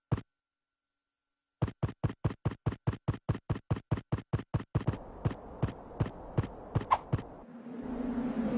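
Cartoon footstep sound effect: a run of quick, evenly spaced light taps, about six a second, slowing to about three a second as a hiss rises beneath them, with a low hum coming in near the end.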